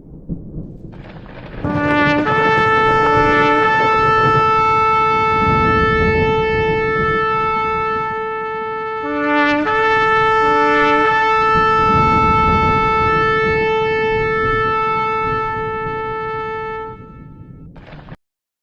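A shofar blown in two long blasts. Each blast opens with a couple of short, lower, broken notes, then jumps up to one high note held for about seven seconds. The second blast starts about nine seconds in.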